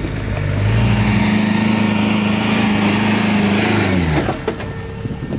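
Off-road vehicle's engine revving hard under load as it climbs a steep dirt bank. The revs hold high for about three seconds, then drop away sharply about four seconds in, followed by a few short knocks.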